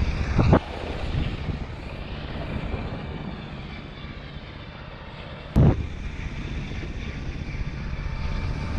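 Wind rushing and buffeting over a helmet-mounted camera's microphone during a parachute descent under an open MC-6 canopy, with a strong gust just after the start and a sharp knock with a blast of wind about five and a half seconds in.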